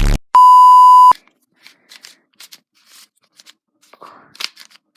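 Loud, steady censor-style beep lasting under a second near the start, then faint scattered clicks of a plastic 3x3 puzzle cube being turned.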